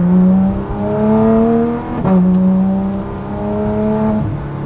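Porsche GT3 RS's 4.0-litre flat-six with a Dundon Motorsport Inconel exhaust, heard from inside the cabin, pulling through the gears. The note rises steadily, drops sharply at an upshift about two seconds in, rises again, and drops at another shift near the end.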